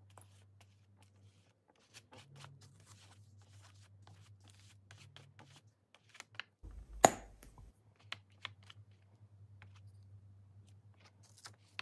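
A silicone brush dragging thick gesso across a paper journal page in faint, scratchy strokes, with one sharp tap about seven seconds in.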